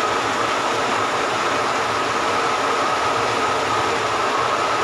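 Waterfall, a steady rushing noise of falling water with no change.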